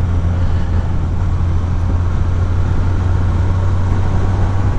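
Motorcycle engine running steadily while riding, a steady low drone with wind and road rush over it.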